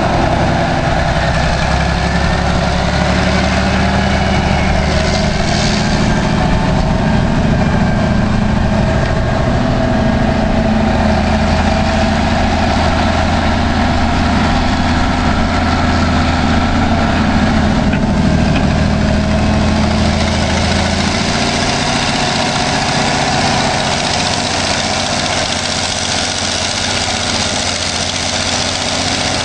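Caterpillar 988 wheel loader's diesel engine running steadily as the loader works in shallow water. Its deep low note eases off about two-thirds of the way through.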